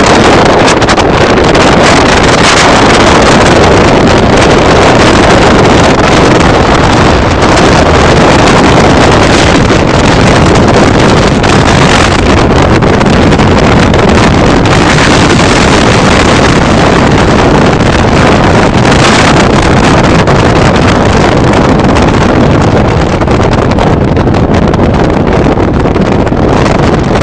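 Heavy wind rushing over the microphone on a fast-moving Suzuki motorcycle, with the engine running underneath, steady and loud throughout.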